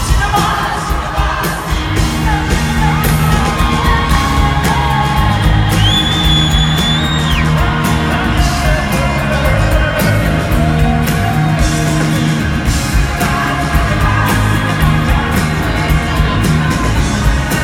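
Live pop-rock concert music played loud through an arena sound system: band with a steady bass line and a singer, over a crowd yelling and whooping, with one high held cry about six seconds in.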